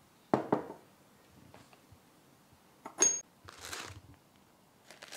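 Earthenware teapot lid handled on the pot: two light knocks near the start, then about three seconds in a sharp clink with a brief ring as the lid comes off, followed by a short rustle.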